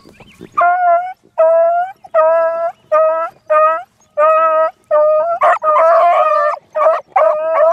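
Beagles baying on a rabbit's scent: a run of short, clear-pitched bays, one or two a second, starting just after the start. Two-thirds of the way in, a second voice overlaps.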